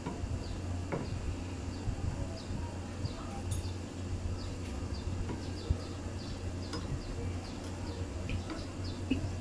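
Soy-and-brown-sugar sauce simmering around fried fish steaks in a frying pan: faint, quick, irregular pops and ticks over a steady low hum.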